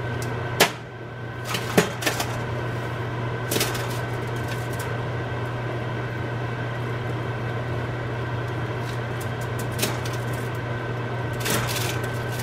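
A steady appliance hum with a faint high whine, broken by a few brief crinkles and taps of aluminium foil as frozen plantain pieces are pulled apart and set down on a foil-lined baking pan.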